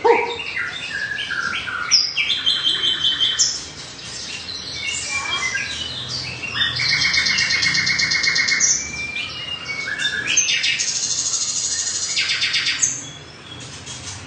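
Caged songbirds singing a varied, continuous song of clear whistles and rapid trills, with quieter gaps about four seconds in and near the end.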